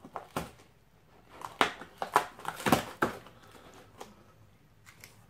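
Small knife cutting through packing tape on a cardboard parcel and the box flaps being pulled open: a run of short scraping and tearing sounds, loudest just before the middle, then dying away about two-thirds of the way in.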